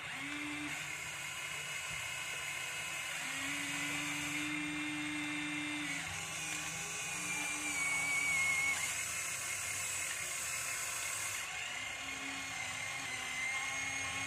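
Small electric motors and gearboxes of a toy RC excavator whining as it works its boom and bucket. Motors cut in and out several times, each at its own steady pitch.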